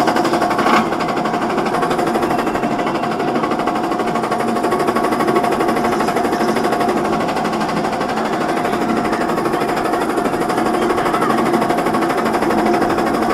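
Roller coaster lift-hill chain clattering rapidly and steadily as a B&M inverted coaster's train is pulled up the lift hill, with a steady whine underneath.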